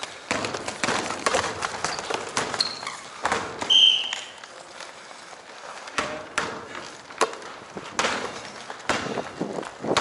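Basketball game on a hardwood gym floor: the ball bouncing and players' running footsteps, with short sneaker squeaks, the loudest a little under four seconds in.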